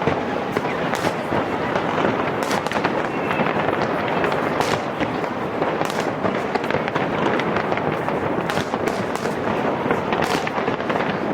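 New Year fireworks display: a dense, continuous crackle with frequent sharp bangs overlapping one another, at a steady loudness throughout.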